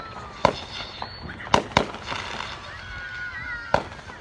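Fireworks going off: about five sharp bangs and pops in quick succession, the loudest about one and a half seconds in and another near the end.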